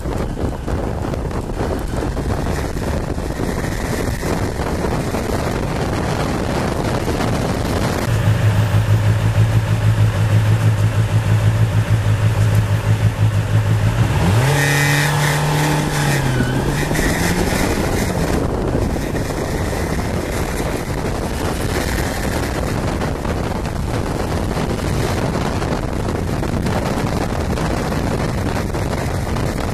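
Kawasaki Balius inline-four motorcycle engine heard while riding, under heavy wind noise on the microphone. Near the middle a steady engine drone stands out for several seconds, then its pitch swings up and down before it sinks back under the wind.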